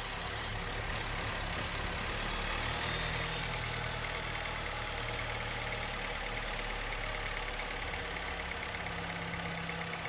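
Honda Fit's four-cylinder engine idling steadily just after start-up, with a new throttle body fitted. The loud noise it made before is gone, a sign that the faulty throttle body was the cause.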